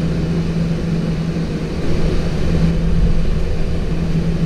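Boeing 737-800 flight-deck noise on the runway at takeoff: a steady hum over the low rumble of its CFM56 engines, growing somewhat louder about two seconds in.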